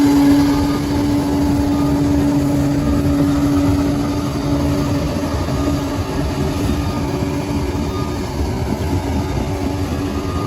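Bulldozer's diesel engine running steadily, a continuous low rumble with a steady hum that fades about halfway through.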